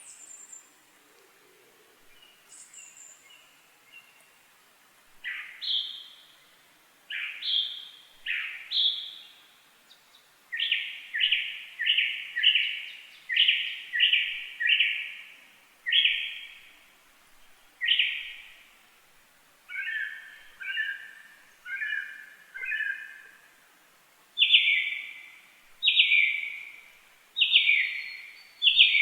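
A bird calling over and over: a few faint high chirps at first, then from about five seconds in a long series of loud, short calls, roughly one or two a second.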